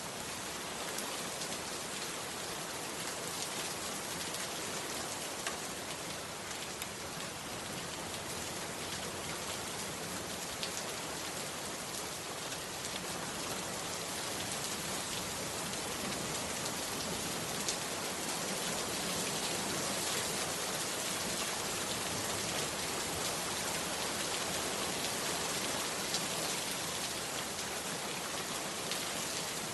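Heavy rain falling steadily, a dense even hiss with a few sharper individual drops ticking through it.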